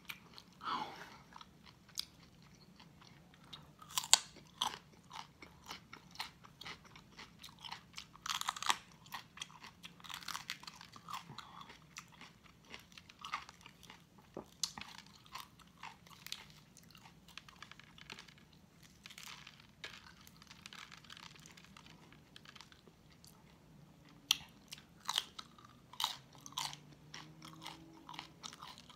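Close-miked chewing and biting of crunchy food, with irregular crisp crunches and mouth sounds. The louder bites come about 4 seconds in, around 8 to 9 seconds, and in a run near the end.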